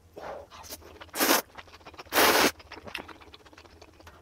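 Close-miked mouth sounds of someone eating spicy fire noodles: a soft slurp as the bite goes in, then two loud hissing rushes of air at the mouth, a short one about a second in and a longer one about two seconds in.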